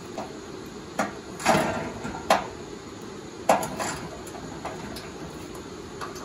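Metal clanks and knocks from working at the center bolt of a truck's skid plate: four sharp strikes about a second apart, the second a little drawn out, with a few fainter taps between.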